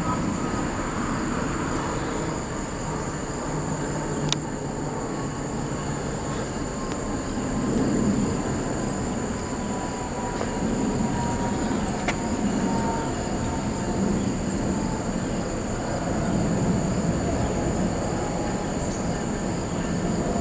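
Freight train of empty ethanol tank cars rolling along the rails: a steady low rumble that swells and fades every few seconds, with a faint thin wheel squeal and a couple of sharp clicks.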